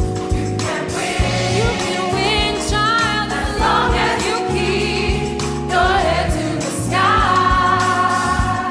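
Gospel choir singing over a band, with a sung lead line carrying vibrato and runs.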